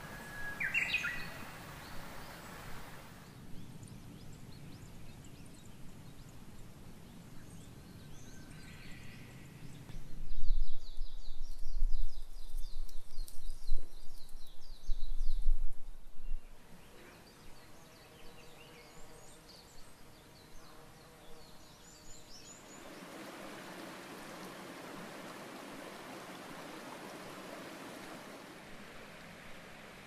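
Outdoor ambience with birdsong: a short rising bird call about a second in, then a loud, uneven low rumble for several seconds mid-way with a bird's rapid high chirping over it, and a steady even hiss through the last few seconds.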